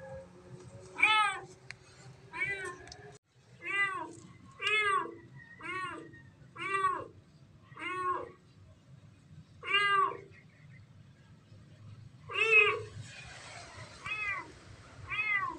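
Trapped kitten meowing over and over from inside a PVC downspout pipe: about eleven loud calls, each rising then falling in pitch, with a longer pause about two-thirds of the way through. These are the distress cries of a kitten stuck in the pipe.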